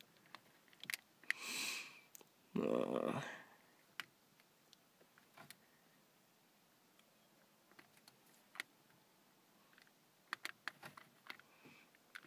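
Small plastic clicks of the buttons and volume knob on a Pioneer aftermarket car stereo being pressed, scattered and irregular. The unit itself stays silent, getting no power. Near the start come two short breathy noises, the second louder.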